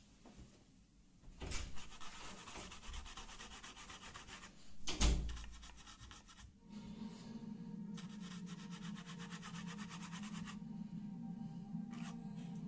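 Paintbrush scrubbing paint onto a canvas: a fast rasping rub in two spells, with a single thump about five seconds in. A steady low hum comes in about halfway through.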